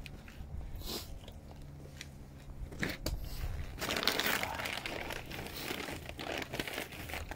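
Yellow plastic garbage bag rustling and crinkling as it is handled, loudest about four seconds in, with a couple of sharp knocks before that.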